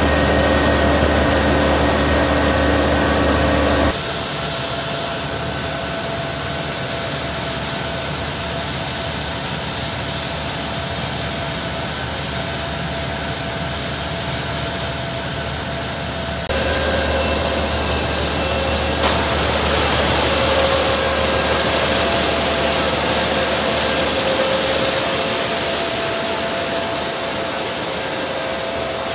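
ISEKI HJ6135 six-row rice combine harvester running steadily while it cuts and threshes standing rice: a continuous engine and machinery drone. It is louder in the first few seconds and again from about 16 seconds in, and quieter in between.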